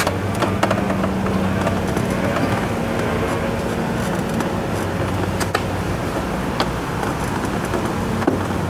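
A steady motor drone with a low hum, and a few light clicks as wires are handled.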